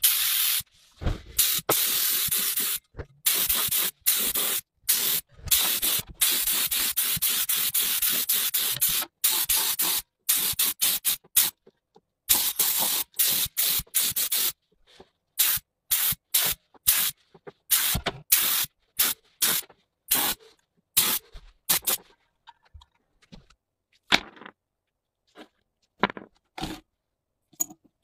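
Gravity-feed air spray gun hissing in repeated short bursts as the trigger is pulled and released, spraying paint. The bursts grow shorter and further apart after the middle, with only a few brief sounds near the end.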